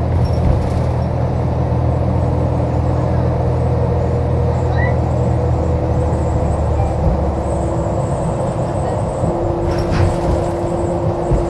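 New Flyer XDE60 Xcelsior articulated hybrid bus running, its Cummins ISL9 diesel and Allison H50 EP hybrid drive making a steady low hum that gives way to a rougher rumble about six seconds in. A faint high whine and steady mid-pitched tones sit over it, and there is a short knock near the end.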